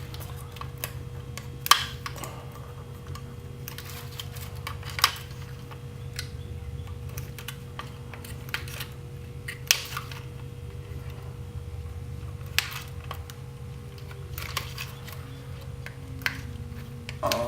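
Cutters snipping the leads of components off a circuit board: sharp, irregular clicks a few seconds apart, several of them much louder than the rest, over a steady low hum.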